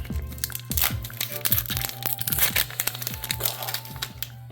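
Foil booster-pack wrapper crinkling and crackling as it is handled and torn open, with background music playing underneath.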